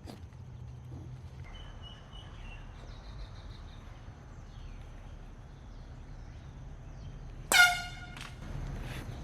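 A single short, loud blast from a handheld air horn about seven and a half seconds in, over a faint steady background.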